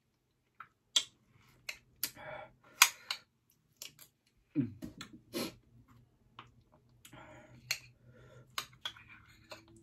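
Metal spoon clicking and scraping against a glass bowl of ice cream, a sharp click every second or so, the loudest a little under three seconds in. Between the clicks come the mouth sounds of eating and a couple of short hummed "mm" sounds.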